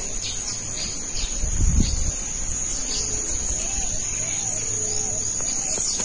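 Steady high-pitched drone of insects, crickets or cicadas, with birds calling over it: a run of short arching notes in the second half and scattered high chirps. A brief low rumble about two seconds in.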